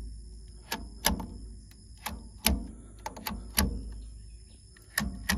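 Hinged plastic DC string-fuse holders in a solar PV combiner box snapping shut one after another: a sharp click about every second, some in quick pairs. Each click closes a fuse and puts a PV string onto the combiner box.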